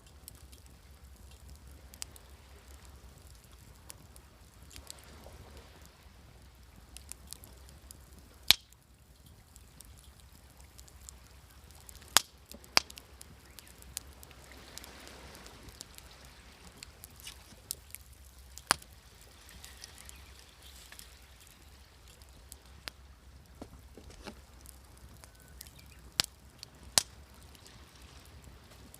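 Campfire crackling with sharp, irregular pops, a few of them much louder, over a soft, steady wash of sea waves.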